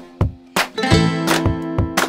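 Background music: guitar chords held over a steady, regular beat.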